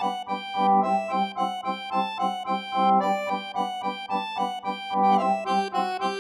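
Background music: an instrumental keyboard tune of quick, evenly paced notes.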